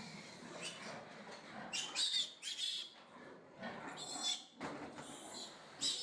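Piglet squealing in a string of short, high-pitched bursts while it is held and handled.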